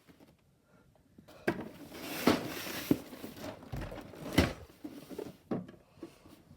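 Cardboard box and packaging being handled and opened: several sharp knocks and clicks with a brief burst of rustling between them.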